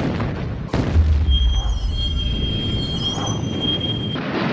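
Tank cannon firing: a sharp blast about a second in, followed by a deep rumble. A steady high-pitched whine runs over it for about three seconds and cuts off just before a second loud blast at the very end.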